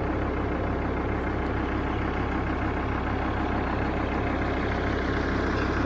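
Motorhome driving: a steady, low engine drone with road noise.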